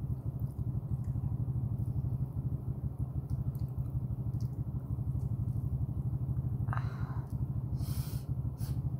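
A person chewing with the mouth closed while eating, with faint wet clicks and smacks, over a steady low rumbling hum. Two brief louder noises come near the end.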